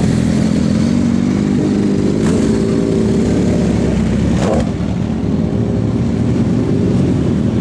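Motorcycle engine running steadily at idle, with a short sharp knock about four and a half seconds in.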